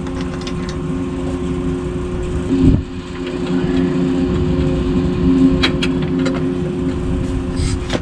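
Tractor engine running steadily, with a single thump nearly three seconds in and a few light clinks later on.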